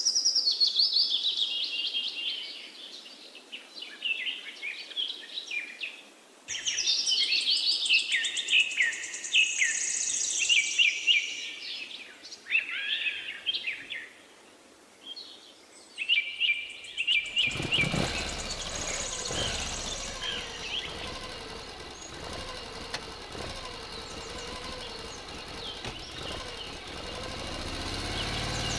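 Birds chirping in quick high bursts; about two-thirds of the way through, a small electric DC motor switches on abruptly and runs with a steady whir, driving a miniature belt-driven water pump.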